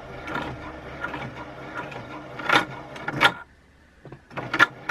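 Janome Memory Craft 5900 QC computerised sewing machine stitching, with two sharp knocks near the end of the run. It stops about three and a half seconds in, and a few clicks follow. The seam is failing again, a fault the sewer puts down to the thread tension.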